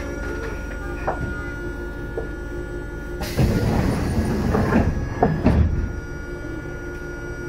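Train's sliding doors opening at a station stop: a sudden hiss of air about three seconds in, lasting about three seconds and ending in two thuds, over the steady hum of the stopped railcar's equipment.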